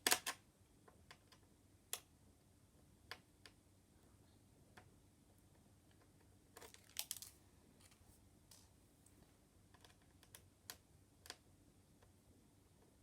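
Faint, scattered small clicks and taps as a screwdriver works the display screws out of an HP laptop's frame and the laptop is handled. There is a cluster of clicks at the start and another about seven seconds in.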